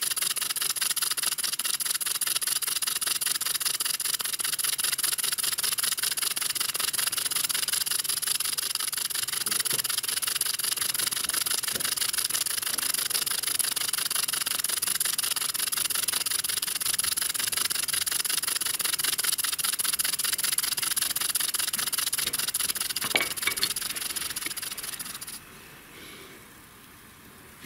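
Handmade brass V-twin model steam engine running fast, a quick even chuffing with steady steam hiss. The engine is new and still being run in. The sound falls away sharply near the end.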